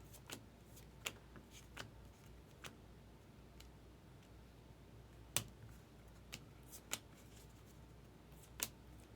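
Baseball trading cards being handled and flipped through one by one: faint, irregular clicks and snaps of card stock, about eight in all, the sharpest about five seconds in.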